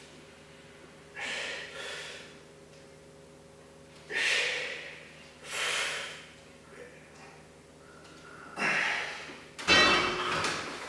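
A weightlifter's hard, forceful breaths through nose and mouth between bench press reps, one every one to three seconds. Near the end comes a louder metallic clank with a short ring, the loaded barbell going back into the rack.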